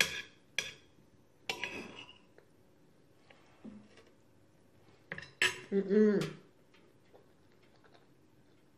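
Cutlery clinking and scraping against a plate of food: a few sharp clinks near the start, a short scrape at about a second and a half, and another clink past five seconds. Just after that last clink comes a brief vocal sound from the eater, the loudest thing here.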